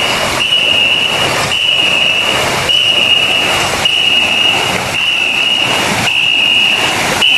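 A whistle blown in long, evenly repeated blasts about once a second, keeping the stroke rhythm for a ngo boat's crew of paddlers. Under it, their paddles churn and splash the water on each stroke.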